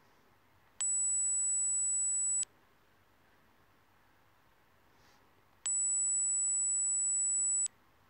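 A phone dog-whistle app playing a steady, high-pitched electronic tone twice, each about two seconds long, starting and stopping abruptly.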